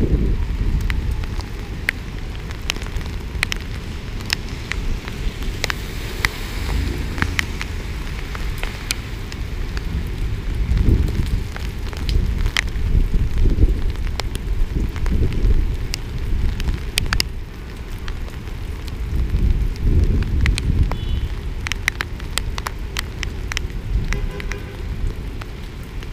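Heavy rain on a flooded street: drops tick sharply and irregularly on the camera, cars hiss through the standing water, and a low rumble swells and fades several times.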